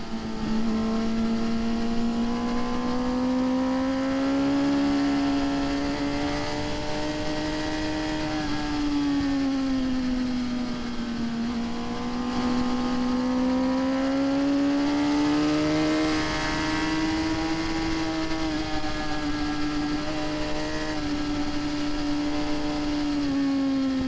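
Sport motorcycle engine heard from an onboard camera at track speed, its pitch rising and falling slowly several times as the throttle is worked through a run of corners, over a steady rush of wind.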